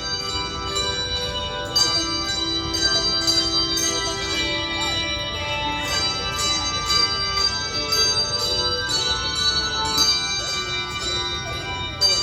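A bell choir playing handbells: bells struck one after another, each tone ringing on and overlapping the next.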